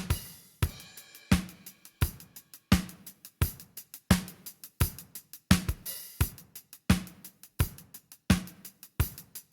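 Drum kit groove with kick, snare, hi-hat and cymbals in a steady beat, about three main hits every two seconds, with a cymbal wash near the start.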